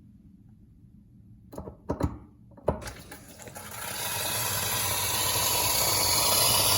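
Instant boiling-water tap: three sharp clicks as it is worked, then boiling water rushing out with a hiss. The rush builds from about three seconds in and then runs steady.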